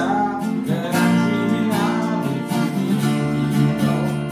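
Pop band playing an instrumental break: strummed acoustic guitar over a steady drum beat, with no singing.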